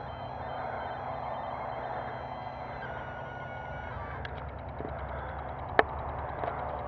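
Powered parachute's engine running steadily at a distance, heard as a constant drone. A single sharp click comes about six seconds in.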